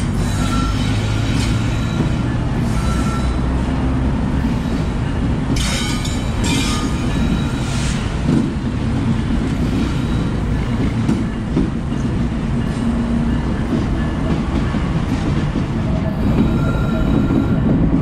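Norfolk Southern GE AC44C6M diesel locomotive rolling slowly past close by, a steady deep engine rumble with steel wheels running on the rail. There are a few brief sharp wheel squeaks or clanks around six to eight seconds in.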